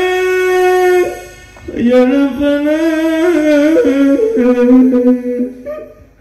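A man's solo voice chanting melismatically into a microphone in two long phrases of held, wavering notes, with a short break about a second in.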